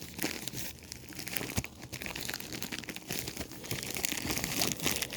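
Packaging crinkling and tearing in the hands as a parcel of trading cards is unwrapped, a continuous crackle of many small clicks.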